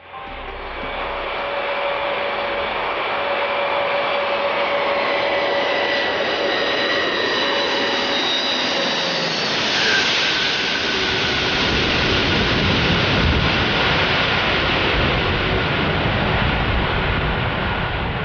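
Jet engines of an Antonov An-225, its six Progress D-18T turbofans, running at high power: a steady loud roar with several high whining tones. About ten seconds in the tones drift down and fade while a deeper rumble grows.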